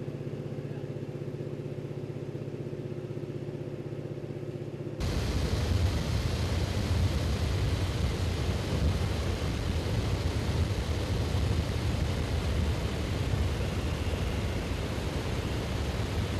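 Airplane engine and cabin noise: a steady drone with several fixed tones, then about five seconds in it changes abruptly to a louder, rushing rumble.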